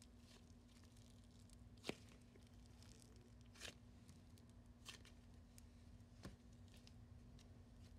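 Faint sound of a multicoloured slime being folded and stretched by hand, with four sharp little pops or clicks; the loudest comes about two seconds in. A faint steady hum runs underneath.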